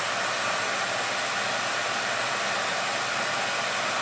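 Steady, unchanging blowing of a hair dryer running on its low fan setting, mixed with the fans of two electric space heaters.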